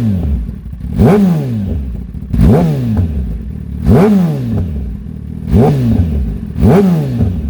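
2020 Kawasaki ZX-10R's inline-four engine through an Austin Racing GP1R exhaust, revved in five quick throttle blips, each rising sharply in pitch and falling back toward idle.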